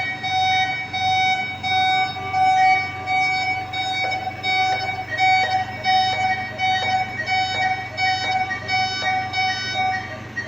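Electronic alarm beeps from neonatal ICU equipment, several fixed-pitch tones repeating over and over in a regular on-off pattern over a low steady hum, with a few short clicks in the middle.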